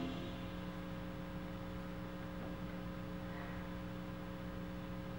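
Steady low electrical hum with a few faint unchanging tones, after the last of a brass and orchestral music cue dies away at the very start.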